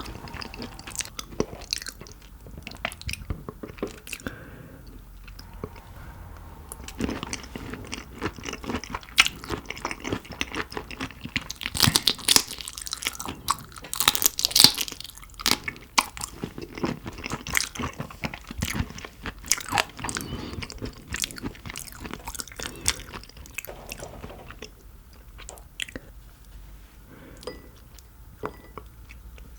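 Close-miked chewing and crunching of Dokdo shrimp, with irregular crackling bites that are densest about halfway through.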